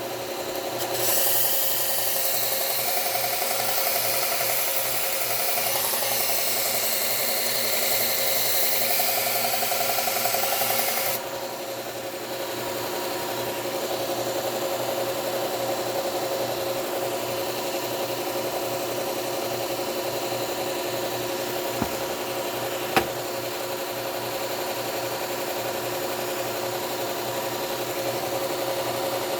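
Slow-speed belt sander running with a 120-grit Cubitron belt while a lopper blade is ground against it to work out nicks in the edge. Loud hissing grinding for the first ten seconds or so, then lighter grinding over the steady hum of the motor, with two small ticks about two-thirds of the way through.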